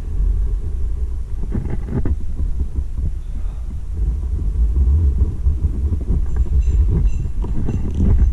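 Steady low rumble on the microphone of a body-worn GoPro action camera, the noise of wind and of the camera rubbing against clothing and harness during a rappel, with a few brief scuffs about two seconds in.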